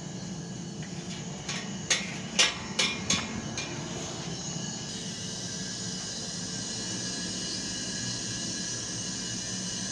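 Steady machinery drone, a low hum under a broad hiss, broken by a handful of sharp clicks and knocks about two to three and a half seconds in.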